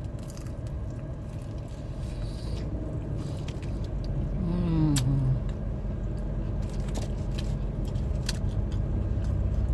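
Crispy fried chicken drumstick being chewed, with scattered small crunching clicks, over a steady low rumble. About four and a half seconds in comes a short falling "mm" hum.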